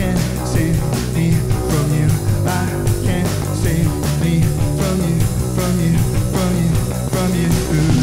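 A rock band playing: electric guitar, bass and drums with a steady beat.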